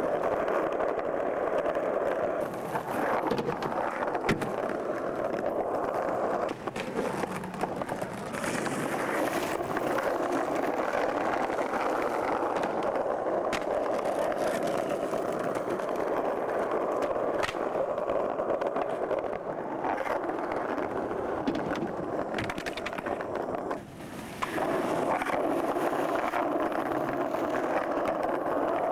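Skateboard wheels rolling steadily over hard plaza paving, with a few sharp clacks of boards popping and landing; the rolling sound briefly drops out about two-thirds of the way through.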